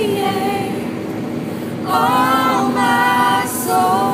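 Several young women singing together inside a moving car, holding long sung notes over the low rumble of the car.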